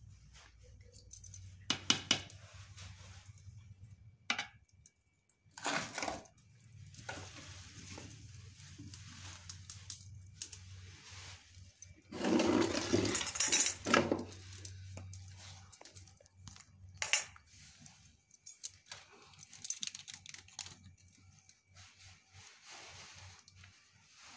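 Steel spatula clinking and scraping against a steel bowl as mango pieces cooking in sugar and spices are stirred. It comes in a few separate strokes, and the longest, loudest scraping comes about halfway through.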